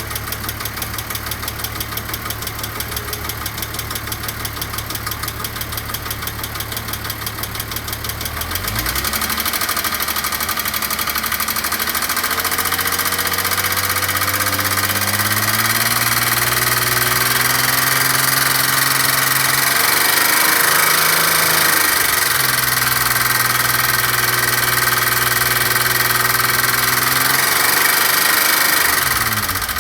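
Audi Cabriolet V6 engine idling with a fast, even rattle, then revs rising slowly about eight seconds in and held up, with a short dip a little past the middle and a drop back near the end.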